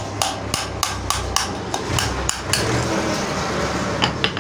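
Hammer blows on a steel rod driving a worn front wheel bearing out of a motorcycle hub, about three sharp metallic strikes a second. The run stops about two and a half seconds in, and two more strikes come near the end.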